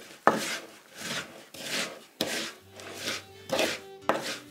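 Wooden spoon scraping and stirring a stiff, sticky mincemeat mix in a wooden bowl, working it up off the bottom, in a run of about seven separate scraping strokes.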